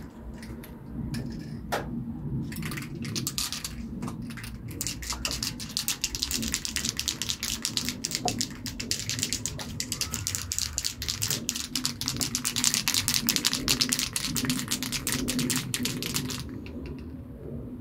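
Aerosol spray paint can being shaken, the mixing ball inside rattling in a fast, steady run of clicks that starts a couple of seconds in and stops about a second before the end.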